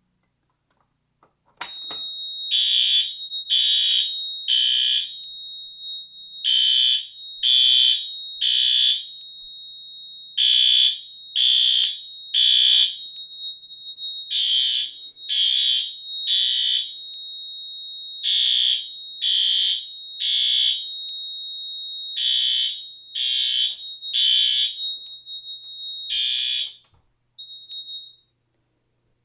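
Fire alarm horns sounding the temporal-3 evacuation pattern: three short blasts, a pause, then three more, over a steady high electronic tone. They start about two seconds in and stop shortly before the end.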